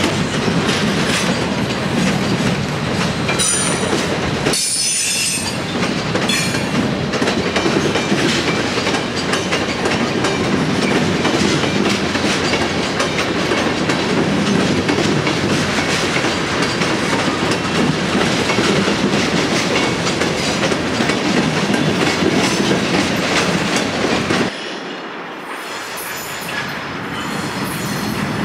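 Freight train of tank cars rolling past on steel rails, wheels clicking over the rail joints, with brief high wheel squeals a few seconds in. The rolling noise drops off suddenly near the end as the last car clears.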